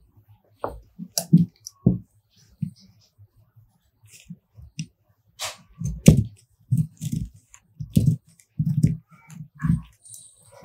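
Large tailor's shears cutting through newspaper, a run of short crunching snips coming two or three a second in the second half. A few clicks and knocks in the first two seconds.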